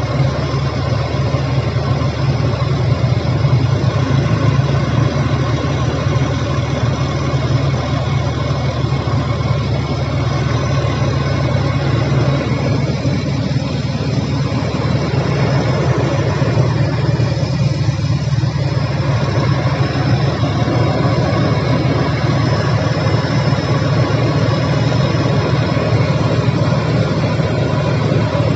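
Vehicle engine running steadily at a constant speed, a continuous low drone.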